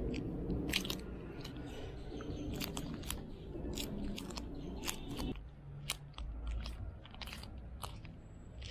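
Gloved hands kneading and squeezing two lumps of putty together: sticky squishing with scattered short clicks and crinkles from the rubber gloves.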